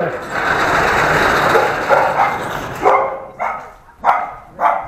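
Several dogs barking in kennel runs: a continuous din of overlapping barking for the first couple of seconds, then separate loud barks about twice a second.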